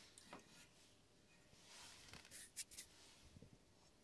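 Near silence: room tone with a few faint, short clicks and rustles of handling.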